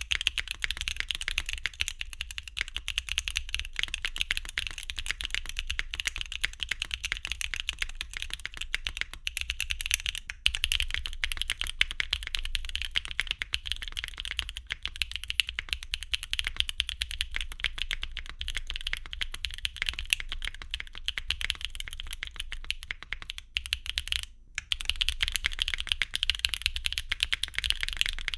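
Fast, continuous typing on a foamless QwertyKeys Neo65 mechanical keyboard with a carbon-fibre plate, tactile switches and Cherry-profile PBT keycaps: a dense stream of keystroke clacks. The typing stops briefly about 24 seconds in.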